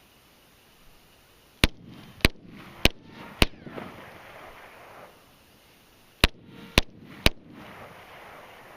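Glock 17 9mm pistol fired in two quick strings, four shots about 0.6 s apart and then three shots about half a second apart, each shot followed by a short echo.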